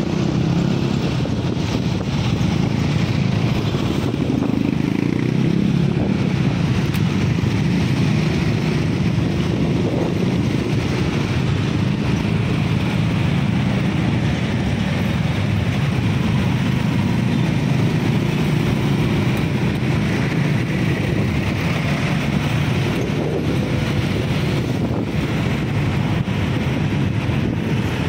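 Ride on a motorcycle through heavy traffic: a steady engine hum mixed with the road noise of the cars, buses and scooters around it.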